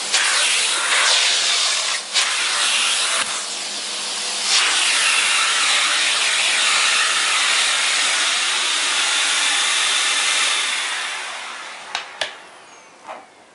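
Electrolux Ultra Silencer Green ZUSG3000 canister vacuum cleaner running, its small nozzle drawing air over a fabric chair seat as a steady hiss with a few brief knocks as the nozzle moves. Near the end the sound winds down and fades away, with a couple of sharp clicks.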